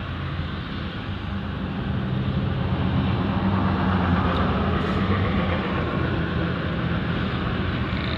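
Steady drone of an idling engine, with low steady tones and a rushing noise above them, growing a little louder about two seconds in.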